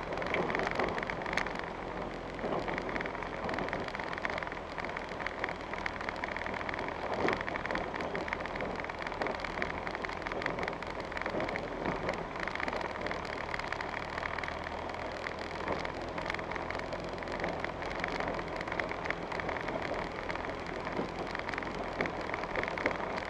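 A vehicle driving slowly over a rough dirt track, heard from inside the cab: a steady rumble of tyres and running gear with many small rattles and knocks throughout.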